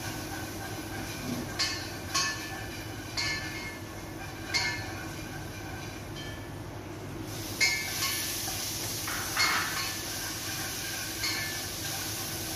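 Kitchen clatter: short, sharp clinks of a ladle in a cooking pot and of a glass jar being handled, a second or more apart, some ringing briefly, over a steady low hum.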